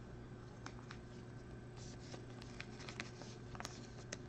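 Faint clicks and rustles of Topps Finest baseball cards being slid and flipped through by hand, the small ticks coming more thickly in the second half, over a steady low hum.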